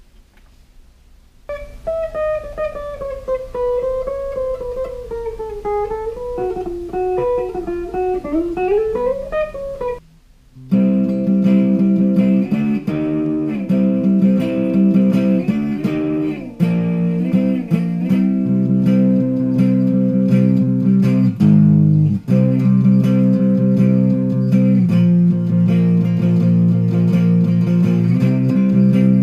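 Electric guitar played through a small NUX Mighty 15SE practice amp. After a short pause comes a single-note melody with bends. About ten seconds in it gives way to much louder sustained chords.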